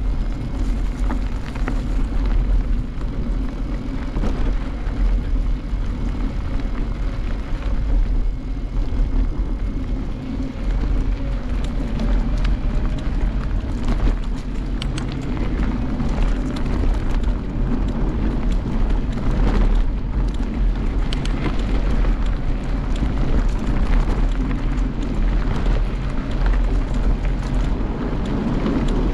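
Wind buffeting the microphone and the tyres rumbling over a grass-and-dirt trail as a bike rides along, with scattered knocks and rattles over bumps.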